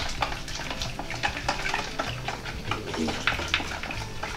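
A metal spoon stirring hot salt water in a mixing bowl, with quick, irregular scrapes and clinks against the bowl. The salt is being dissolved to make a brine.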